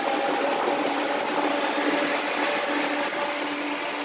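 Dual electric radiator cooling fans running steadily, a rush of air over a steady motor hum. They are switched on through their relay by grounding the relay's signal wire, which shows the wiring works.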